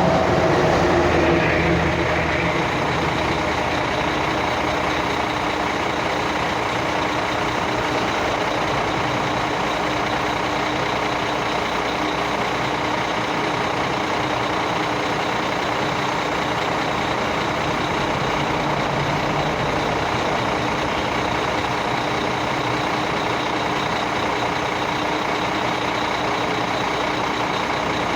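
Heavy diesel machinery engine running steadily at a constant pitch, a little louder in the first couple of seconds.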